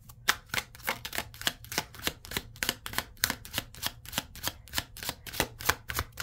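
Deck of tarot cards being shuffled by hand: a quick, even run of rustling slaps, about four strokes a second.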